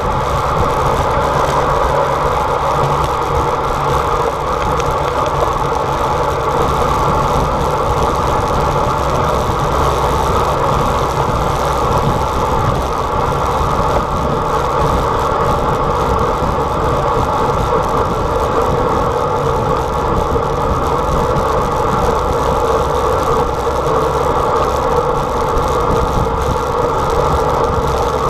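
Steady rush of wind and tyre-on-road noise at speed on a road bicycle coasting downhill, picked up by a camera riding on the bike.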